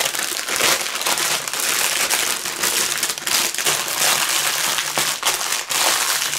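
Clear plastic bag crinkling and rustling as a bundle of small plastic bags of diamond-painting drills is pushed back inside it and the bag is rolled up and pressed flat. The crackling goes on without a break.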